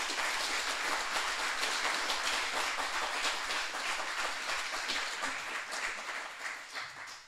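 Audience applauding at the end of a talk, many hands clapping together and dying away near the end.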